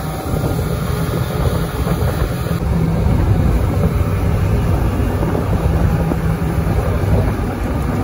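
Motorboat engine running steadily at speed, a continuous low drone mixed with the rush of water and wind buffeting the microphone.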